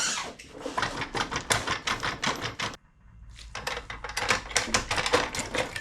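Rapid metallic clicking and tapping as the two halves of a Vespa P200 engine's crankcase are worked apart. It pauses briefly about three seconds in.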